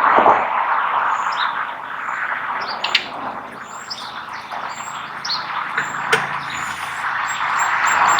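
Small birds chirping repeatedly in short high notes over a steady rushing background noise, with a single sharp click about six seconds in.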